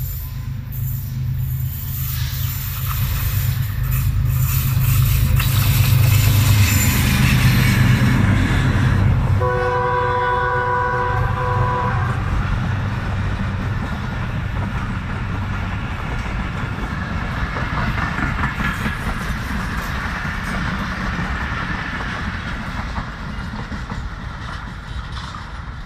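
Pakistan Railways Awam Express passenger train passing close at speed. The diesel locomotive's heavy rumble builds and peaks as it goes by, then one long chord-like horn blast sounds about ten seconds in. The coaches follow, their wheels clacking over the rail joints, and the sound fades near the end.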